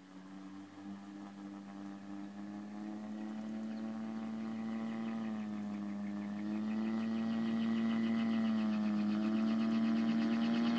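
Gyrocopter's piston engine and pusher propeller running with a steady hum that wavers slightly in pitch, growing steadily louder as the aircraft comes toward the listener along the grass strip.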